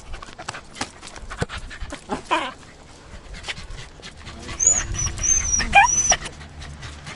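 Dog whining and whimpering: short crying calls, then a cluster of thin, very high-pitched squeals about two-thirds of the way through, among scattered short clicks and snuffles.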